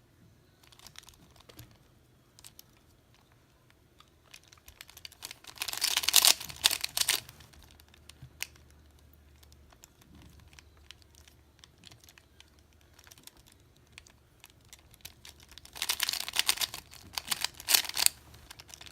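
A 3x3 Rubik's Cube being turned by hand: scattered plastic clicks of single turns, with two quick runs of rapid turning about six seconds in and again about sixteen seconds in.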